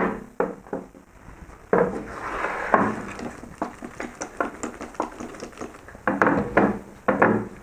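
Kitchen handling sounds: a plate being moved, with short clinks and knocks as oiled dough balls are stacked in it, and a brief hissing stretch about two seconds in.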